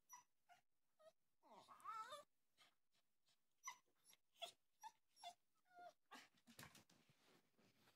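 Cavachon dog giving a quiet string of short, high-pitched cries, with one longer wavering call about two seconds in and a few rougher, breathy sounds near the end.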